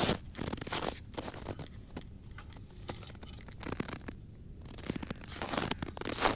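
Footsteps crunching and squeaking on frozen snow at about −15 °C. There is a step at the start and steps again near the end, with a quieter stretch of small crackles between them.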